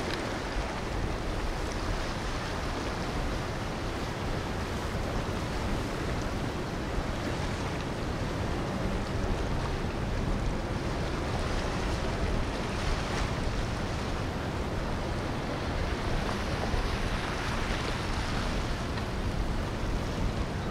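Steady wind noise on the microphone over the wash of water and passing boat engines, with no distinct events standing out.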